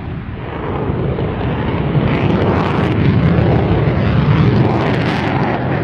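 Sukhoi Su-34's twin turbofan engines in flight: a loud, steady rush of jet engine and air noise that swells slightly after about two seconds.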